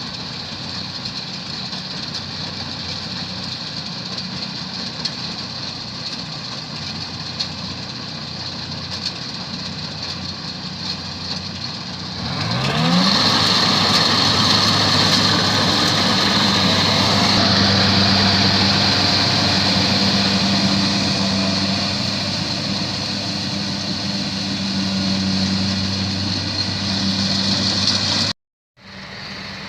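Combine harvester engine running steadily. About twelve seconds in it revs up and runs louder for most of the rest, then cuts out for a moment near the end and comes back quieter.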